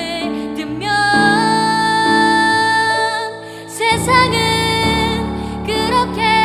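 A teenage girl singing a Korean pop ballad solo over instrumental accompaniment, holding two long notes with vibrato.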